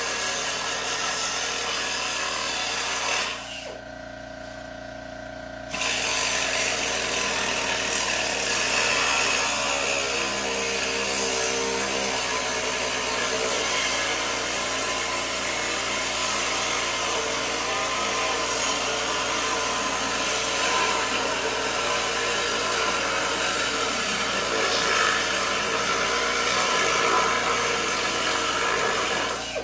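Angle grinder with a cut-off disc cutting through diamond plate, a steady loud grinding. It stops for about two seconds a few seconds in, then cuts again.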